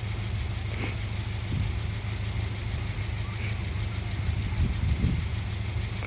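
Wind buffeting the microphone: an uneven low rumble with a faint hiss above it.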